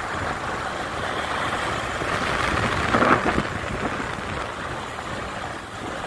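Vehicle travelling along a dirt road: steady engine and road noise mixed with wind rushing over the microphone, swelling a little midway.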